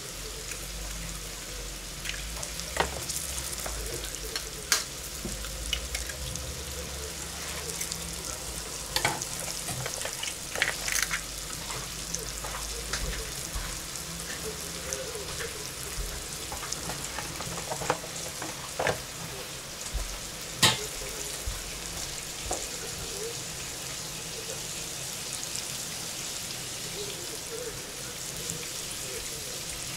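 Pangasius fillets sizzling steadily as they fry in oil in a pan, with scattered sharp clinks and knocks of kitchen utensils; the loudest knock comes about two-thirds of the way through.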